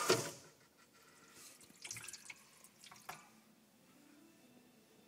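Delta Touch2O kitchen faucet water running, then shutting off abruptly about a quarter second in; the faucet is switching on and off by itself when the supply hose under the sink is moved, a fault. A few faint knocks follow.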